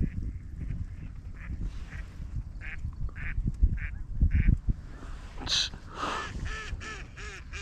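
Live ducks quacking close by: a run of short, evenly spaced quacks about two a second, then a quicker flurry of quacks near the end. A low rumbling noise runs underneath.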